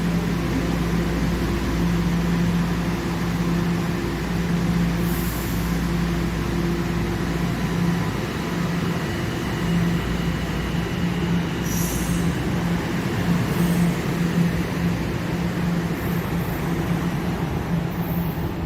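Subway train running through a station with steady, pulsing motor and wheel noise and a few brief high wheel squeals.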